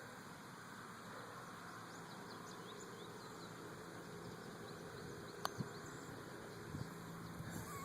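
Faint outdoor background with insects buzzing and chirping. About five and a half seconds in, a single sharp click of a putter striking a golf ball.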